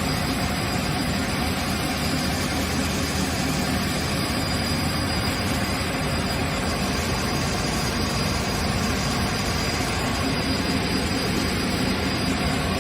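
Industrial woodworking machine running steadily: a constant low hum and hiss with a thin, high, steady whine above it.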